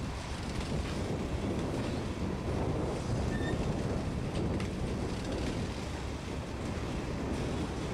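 Covered hopper cars of a passing freight train rolling by: a steady rumble of steel wheels on rail, with a few faint clicks.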